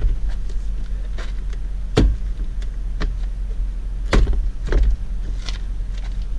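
Plastic door trim panel being pressed and knocked into place on a car door, giving a few sharp snaps and knocks, the loudest about two seconds in and about four seconds in, over a steady low hum.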